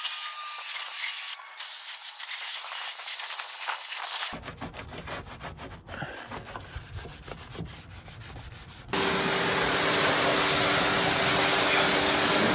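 Pressure washer jet spraying water against a car's bare rear body panels, a steady hiss. About four seconds in it gives way to a sponge scrubbing a soapy panel in short rubbing strokes. Near nine seconds the pressure washer comes back louder, its spray hissing over a steady hum.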